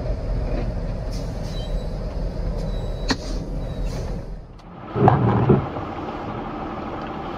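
Heavy truck rumbling along just after a collision, with a sharp knock about three seconds in. After a cut, two short loud sounds about half a second apart, then the steady running noise of a car heard from inside.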